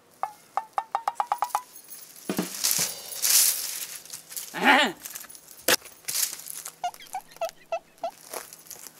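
Dry brushwood branches rustling and crackling as they are pulled from a pile, in several bursts with sharp snaps. A quick run of short clicking notes opens, and a few short chirp-like notes come near the end.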